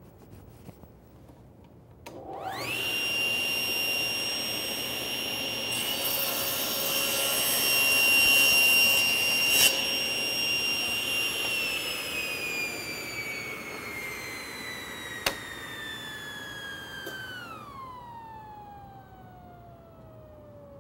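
Table saw started about two seconds in, its motor whine rising quickly to a steady high pitch; the blade crosscuts a pair of stacked boards. The saw is then switched off and the whine slides steadily down in pitch as the blade coasts to a stop, with one sharp click partway through.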